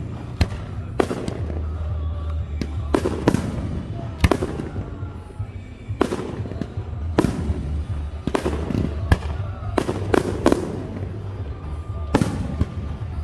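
Aerial firework shells bursting one after another, more than a dozen sharp bangs at uneven intervals of roughly half a second to two seconds, over a steady low rumble.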